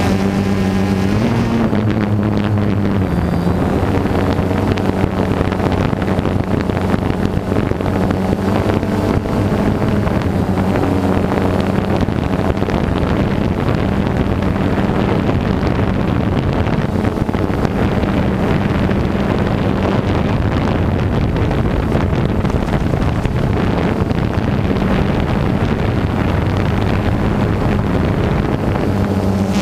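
DJI Phantom 2 quadcopter's electric motors and propellers buzzing steadily as heard from the GoPro mounted on the drone, with wind noise over the microphone. The hum's pitch wavers briefly about two seconds in as the motors change speed.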